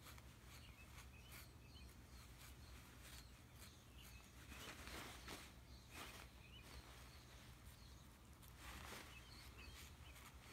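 Near silence over a low steady hum, with faint rustling of a fabric garment as a cat rolls on it and grips it, twice a little fuller, and a few faint high chirps.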